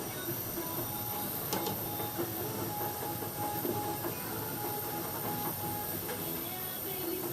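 Butane micro torch burning with its solder tip removed, a steady hiss as it heats and melts polyethylene welding rod into a tank crack.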